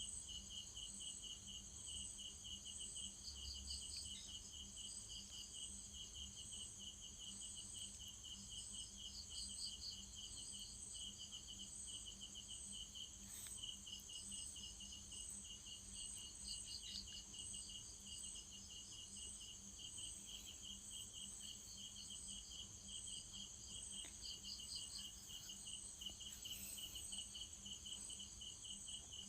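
Crickets chirping steadily in rapid pulsed trills, high-pitched and faint, with a low steady hum underneath.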